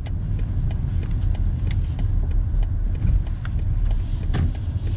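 Cabin noise of a BMW X5 30d's straight-six diesel and tyres driving slowly: a steady low rumble, with light regular ticks about three a second and a single knock near the end.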